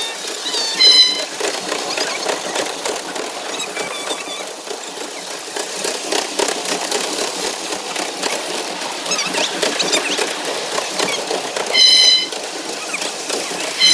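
Ride-on miniature park train running on its track, with a steady rattle of rapid clicks from its wheels and rails. Two short, high-pitched toots, about a second in and near the end.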